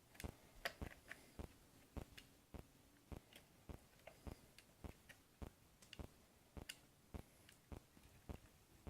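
Faint, evenly spaced ticking, a little under two ticks a second.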